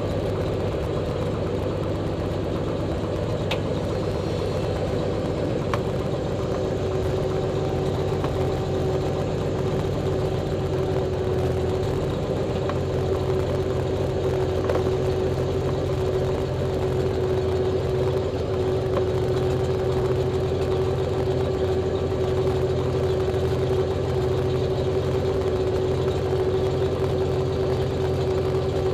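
Pitts S-2B's six-cylinder Lycoming engine and propeller running steadily at low taxi power, heard from inside the cockpit, with a steady hum over the engine's low rumble.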